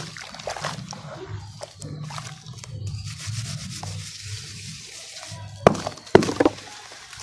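Hands squeezing and crumbling wet red dirt lumps in a tub of muddy water: wet squelching and gritty rubbing with sloshing. Two louder splashes near the end as crumbled pieces drop into the water.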